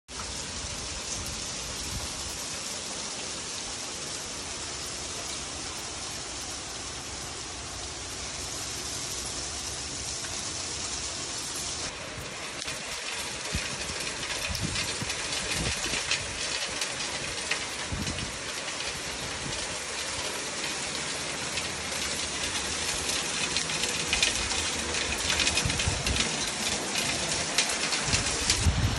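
Hail falling on a concrete porch and lawn: a steady hiss of many small sharp hits. The sound shifts abruptly about twelve seconds in, and after that the hits grow denser and louder toward the end.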